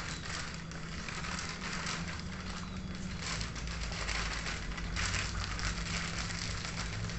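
Clear plastic wrapping crinkling and rustling as it is pulled off a riflescope, coming and going irregularly, over a low steady hum.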